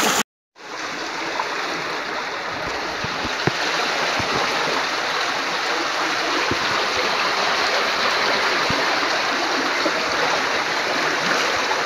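Fast-flowing, swollen stream water rushing steadily. The sound drops out completely for a moment just after the start.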